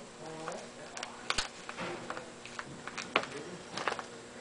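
Hands handling and working at a sealed trading-card pack: scattered sharp clicks and light rustles of packaging, one louder click about a second in and another about three seconds in.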